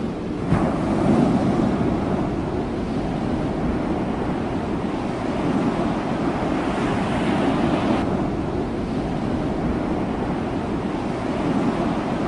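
Ocean surf washing and breaking in a steady rush, with wind buffeting the microphone.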